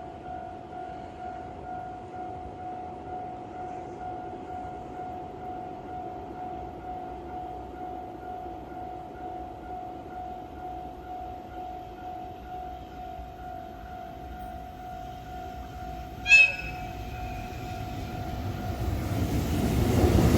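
A freight locomotive gives one short horn toot about sixteen seconds in, a courtesy greeting to the trackside photographers. Near the end the rumble of the approaching freight train swells, over a faint steady tone.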